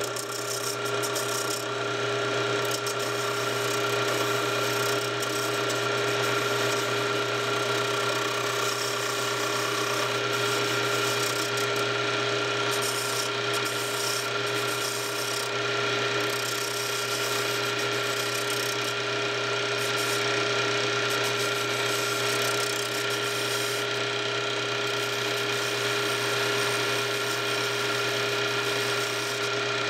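Small lathe running steadily, a constant hum with several steady tones, while a hand-held turning tool scrapes the spinning wooden wheel blank to round the top of the tire.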